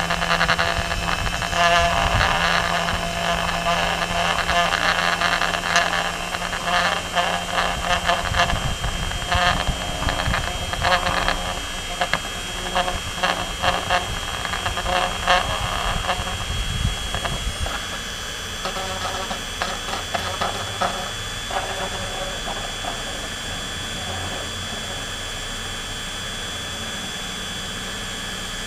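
Dremel rotary tool running at high speed with a steady whine, spinning a stub of ABS filament pressed against printed ABS parts to friction-weld the seam, with irregular scraping and chattering of plastic on plastic. About 17 seconds in the scraping stops and the tool runs on more evenly.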